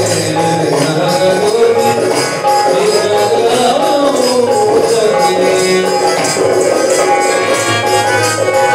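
Live Rajasthani folk music played on harmonium and dholak, a sustained melody over a steady drum beat with constant jingling percussion.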